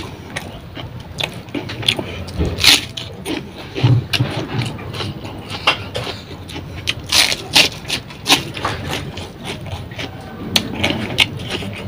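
Close-miked eating by hand: chewing a mouthful of rice and fish curry, with many irregular sharp mouth clicks and smacks, and fingers working the rice on the plate.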